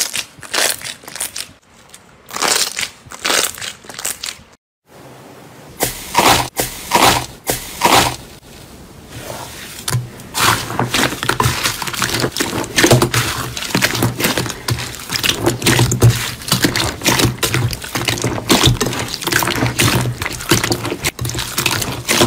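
Slime being squeezed and kneaded by hand in a bowl, making dense wet clicking and popping. The sound pauses briefly about five seconds in, then runs on as a blue foamy slime is worked.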